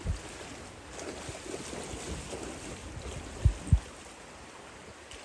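Creek water running with a steady rush, broken by a low thump at the start and two louder low thumps in quick succession about three and a half seconds in.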